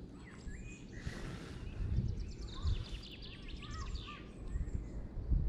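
Small birds chirping and singing in short whistled phrases, over a low, uneven rumble.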